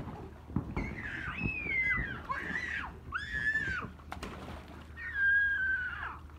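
Young children's high-pitched squeals and cries, several in a row with the loudest near the end, over light water splashing in a paddling pool.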